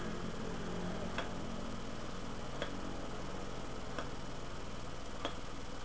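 Soft, short clicks at a steady pace, about one every second and a third, over a constant electrical hum and hiss.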